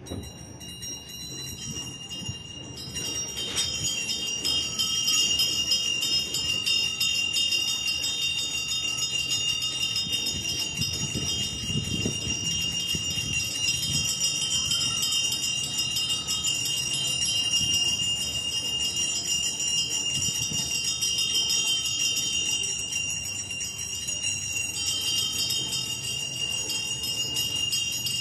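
Hand-held altar bells (a cluster of small Sanctus bells) rung continuously, a steady shimmering ringing that grows much louder about three seconds in. They are the bells rung during the blessing with the Blessed Sacrament in the monstrance.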